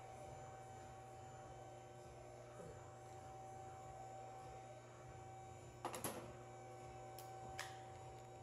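Faint steady hum, with a quick cluster of light clicks about six seconds in and two single clicks near the end.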